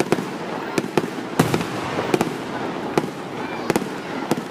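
Fireworks display: about ten sharp bangs going off at irregular intervals, some in quick pairs, over a continuous noisy background.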